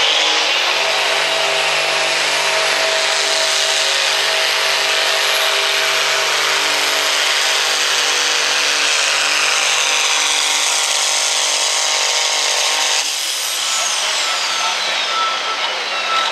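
Diesel farm tractor at full throttle pulling a weight-transfer sled, the engine running hard and steady under load with a high turbo whistle. About 13 seconds in it throttles back: the engine note drops and the whistle falls away in pitch, and a steady beeping starts near the end.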